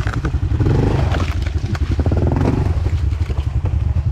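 Honda CRF110F pit bike's small single-cylinder four-stroke engine running at low speed, blipped up and back down twice as the bike is turned around on a slope.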